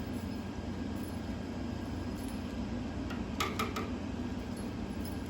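Steady low room hum, with three quick light taps or clicks about three and a half seconds in.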